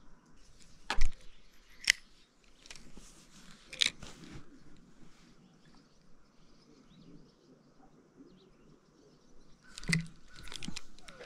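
Sharp clicks and knocks from a spinning rod and reel being handled at a wooden deck railing: a loud one about a second in, lighter ones near two and four seconds, and a quick cluster near the end.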